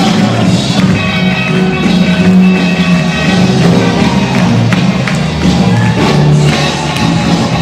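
Loud dance music with a steady beat.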